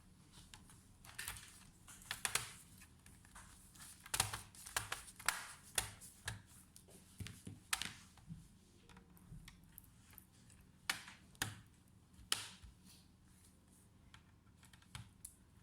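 Irregular light clicks and taps from hands working on a laptop, coming in a quick cluster a few seconds in and then more sparsely.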